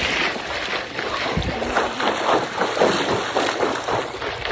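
Swimming-pool water splashing and sloshing right at the microphone as a person swims, an irregular, fairly loud wash of water noise.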